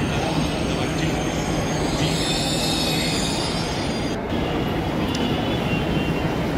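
Electric metro train moving slowly along a station platform, with a steady low hum and a high squeal from about two seconds in. The sound changes abruptly about four seconds in, then goes on as general platform and train noise.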